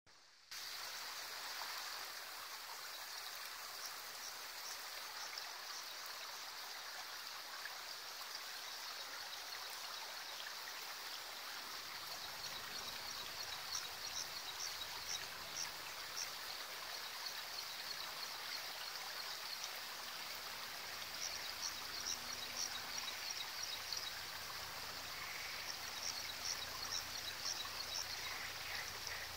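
Water running steadily through a small stream channel over stones, with short runs of rapid high chirping coming in several times.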